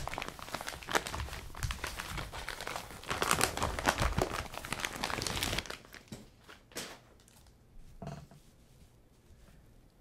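Yellow padded paper mailer being torn open by hand: crinkling and ripping paper for about six seconds, then it goes quieter with only a few short rustles and knocks as the contents are handled.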